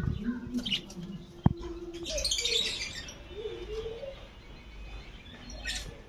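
Budgerigars chirping in scattered short calls, thickest about two seconds in. A single sharp click sounds about one and a half seconds in.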